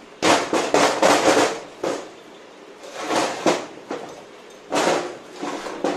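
Irregular bursts of metallic clatter and scraping from hand tools and engine parts being handled on the workbench. The longest burst comes first, followed by shorter ones.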